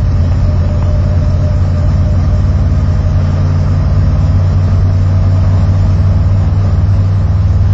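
Old Ford F-250 dually truck's engine running steadily while driving, heard inside the cab as an even, low drone.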